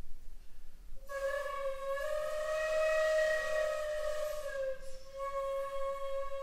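Shakuhachi playing a long, breathy held note that begins about a second in after a brief pause. The note swells slightly higher in pitch and louder in the middle, then settles back to its first pitch and is sustained.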